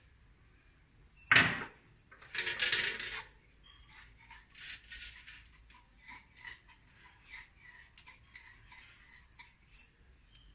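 Metal kitchen utensils clinking and tapping: a sharp knock about a second in, a short clatter soon after, then a run of light, irregular clicks.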